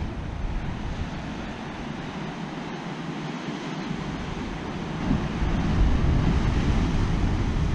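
Ocean surf breaking against coastal rocks, with wind rumbling on the microphone; it grows louder about five seconds in as a wave crashes onto the rocks.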